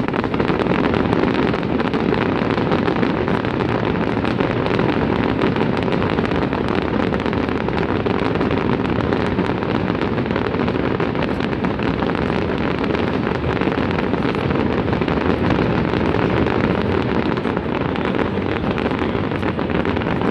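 Dense, continuous fireworks barrage: a steady rumble of overlapping bursts with faint crackling throughout.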